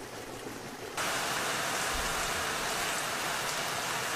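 Shallow stream water running, then about a second in an abrupt cut to a louder, hissier, steady rush of water.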